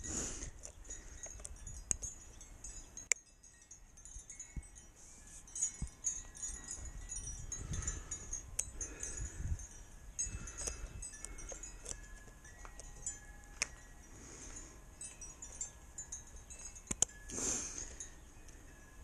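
Scattered light clicks and knocks of hand work on a fuel-vent hose and its spring clip, with a few short, faint ringing notes in the background.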